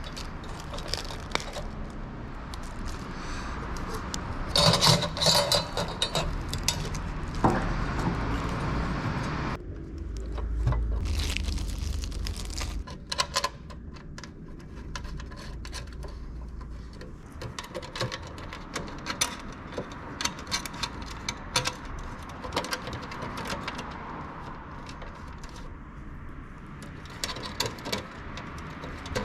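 Handling noises: irregular clicks, small knocks and scraping, with a rattle like keys or small metal parts and a busier, louder stretch about five seconds in. A low rumble runs underneath from about seven to thirteen seconds in.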